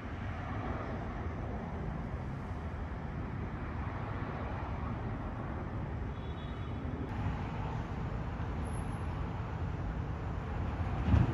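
Steady outdoor traffic noise of an urban street, with no voices. A single brief thump near the end.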